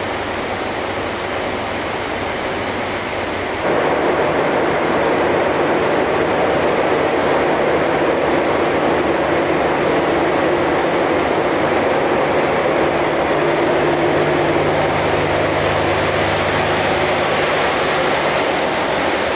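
Steady interior noise of a Boeing 747-8 freighter's flight deck: a constant rush of air with a low hum underneath. About four seconds in it steps up louder and fuller, then holds steady.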